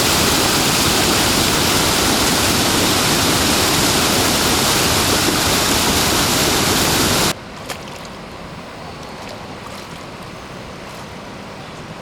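Steady roar of Kaieteur Falls' plunging water. It cuts off suddenly about seven seconds in, leaving a much quieter hiss with a few faint clicks.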